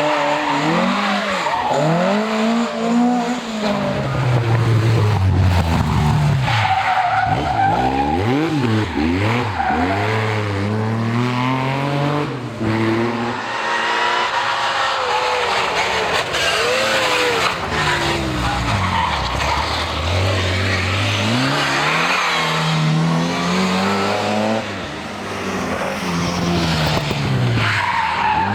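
Historic rally car engines run hard, their pitch climbing through the gears and falling back on lifts and downshifts, over and over. Tyre noise from the stage surface runs underneath.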